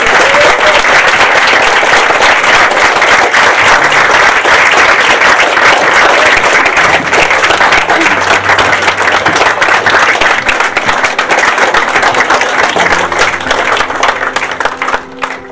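A roomful of guests applauding: dense, loud clapping that thins and dies away near the end.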